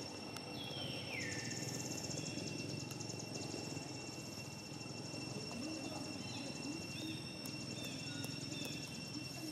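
Outdoor animal sounds: one call sliding down in pitch about a second in, then several short high chirps, over a steady high-pitched buzz.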